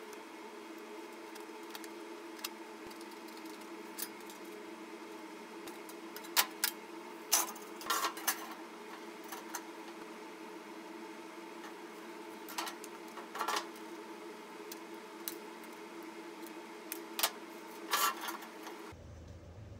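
Thin sheet metal and an empty square tin can being handled on a steel work table: scattered light clanks and rattles of metal, loudest about six to eight seconds in and again near the end, over a steady low hum.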